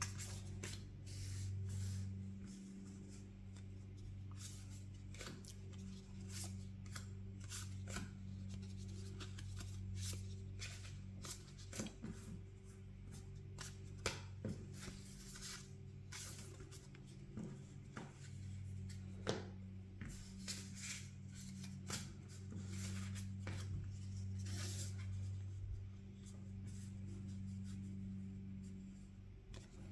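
Magic: The Gathering trading cards being handled and sorted: quick light rustles, flicks and taps of cards against one another and onto a mat, over a steady low hum.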